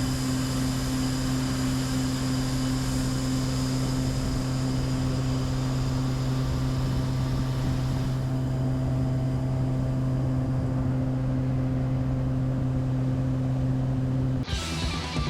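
A steady engine drone holding one constant low pitch, with a hiss over it that thins out about halfway through. Guitar music cuts in near the end.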